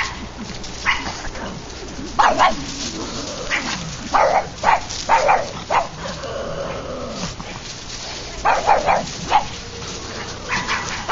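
Pugs barking in quick runs of sharp barks with pauses between the runs: alarm barking at a moose they have heard.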